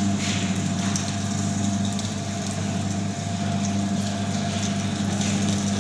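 Electric sugarcane juice machine running with a steady motor hum while a cane stalk is fed in and crushed.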